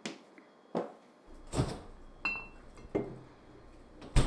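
Glass clinking and hard knocks from bottles and bar items being handled and rummaged behind a bar counter: about six separate knocks and clinks, one with a brief glassy ring about two seconds in, the loudest knock near the end.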